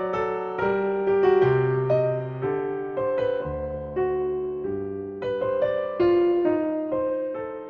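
Background piano music: a light melody of struck notes over lower bass notes.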